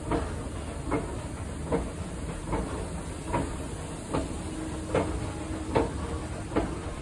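Hitachi escalator running downward: a steady low hum of the drive with a sharp, regular click a little more than once a second.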